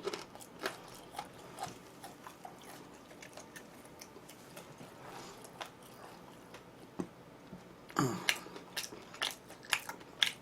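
A person chewing and biting food close to the microphone, with many small wet mouth clicks; the chewing gets louder about eight seconds in.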